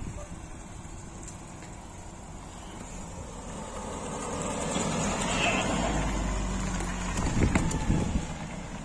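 A road vehicle driving past, its noise swelling over a few seconds and then fading, with a few knocks near the end.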